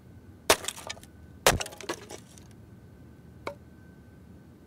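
Hatchet splitting a small log into kindling: two sharp chops about a second apart, each followed by split pieces clattering down, then a single lighter knock later on.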